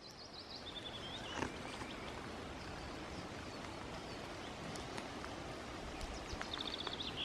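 Faint outdoor background noise with a small bird chirping: a quick series of short high notes stepping down in pitch at the start, and another rapid run of chirps near the end.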